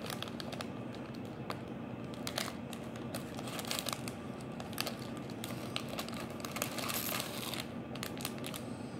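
Thin plastic foil of a Lego minifigure blind bag crinkling and rustling as it is pulled open and a hand rummages inside, in a stream of small irregular crackles.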